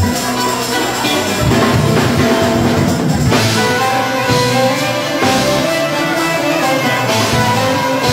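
Live band music: an instrumental intro with a violin playing over plucked string instruments and drums, loud and continuous.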